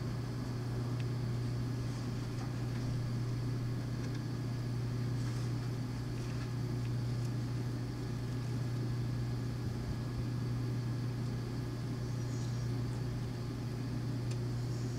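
A steady low hum with no change in pitch or level, with a few faint, brief high-pitched ticks here and there.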